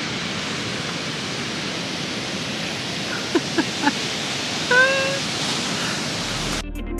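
Steady rushing noise of wind and surf on the beach. A short, slightly rising high call sounds about five seconds in, and music comes in just before the end.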